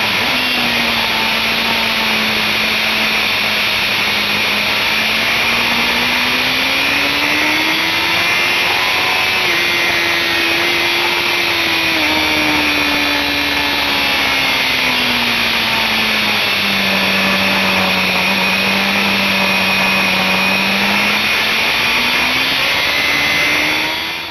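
Onboard sound of a BMW S1000RR's inline-four engine pulling at high revs, buried in heavy wind rush over the microphone. The engine note climbs slowly over several seconds, eases back, holds steady, then climbs again near the end.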